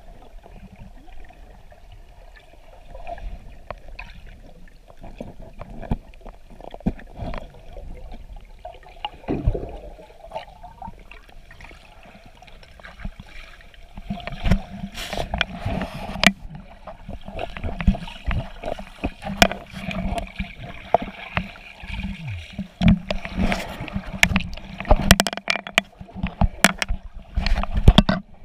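Muffled underwater sound of a snorkeler swimming, picked up by a camera held underwater: sloshing water with many sharp knocks and clicks, busier from about halfway.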